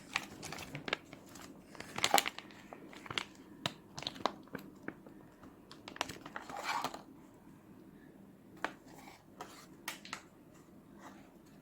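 Hands squeezing and pulling apart sticky slime: irregular wet crackles and squelches, louder about two seconds in and again around six to seven seconds.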